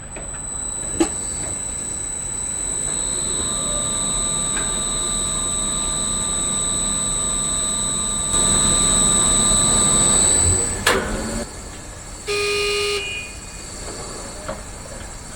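Tower crane machinery running with a steady high electric whine, louder for a couple of seconds in the middle, then a click and a short horn blast near the end.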